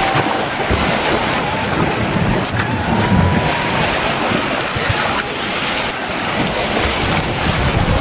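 Fast, turbulent river water rushing and churning among broken ice slabs, with wind buffeting the microphone.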